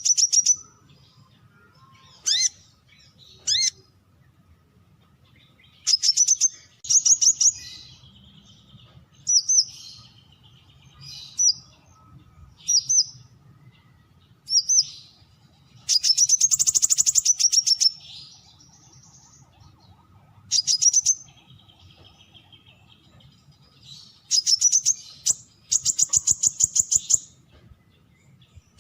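Brown-throated sunbird calling: short bursts of rapid, high-pitched chattering notes, repeated about a dozen times with pauses between. The longest burst comes just past the middle and lasts about two seconds.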